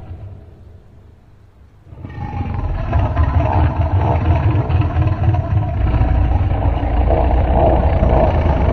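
A deep, rumbling creature call, a long low growl-like sound that swells in about two seconds in and holds steady, after a brief quieter dip.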